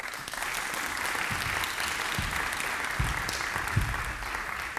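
An audience applauding, starting suddenly and thinning out near the end, with a few low thumps underneath.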